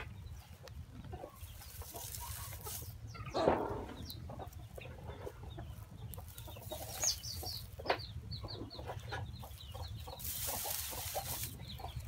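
Chickens clucking faintly, with a louder call about three and a half seconds in and a quick run of short high chirps a little past the middle.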